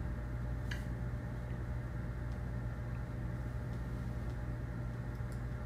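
Steady low hum with an even hiss of room background noise, and a few faint, short clicks.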